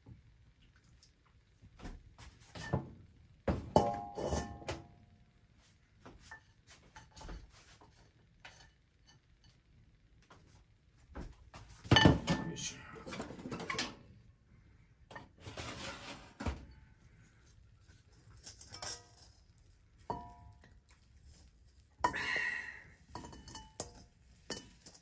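A utensil knocking and scraping against an iron wok while fried rice is stirred, with a few metallic clinks that ring briefly. Near the end the rice is scraped out of the tilted wok onto a plate.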